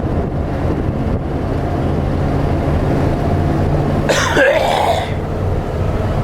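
A heavy smoker's harsh cough, one burst lasting about a second, about four seconds in, over the steady low rumble of a vehicle running.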